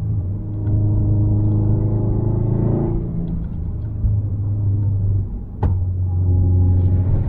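Subaru WRX STi's turbocharged 2.5-litre EJ257 boxer engine under load, easing off about three seconds in, with a sharp crack about five and a half seconds in before it pulls hard again.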